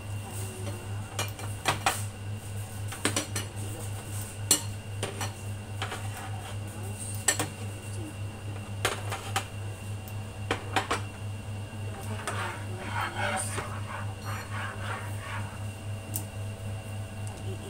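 Ceramic bowls and a spatula clinking and knocking against each other and a glass cooktop as the bowls are moved about, in scattered sharp knocks with a short run of clatter near the end. A steady low electrical hum runs underneath.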